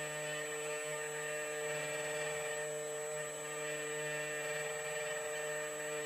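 Key cutting machine's spindle running steadily as its cutter mills an HU100 laser key blank: an even whir with several held tones over a constant hiss.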